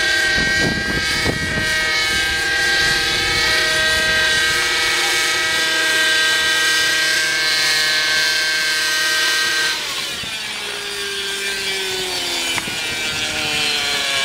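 Nitro glow-engine RC helicopter running with 600 mm main blades: a loud, steady whine of engine and rotors while it flies. About ten seconds in the sound drops and the pitch slides down as the engine throttles back and the helicopter settles onto the ground, rotor still spinning.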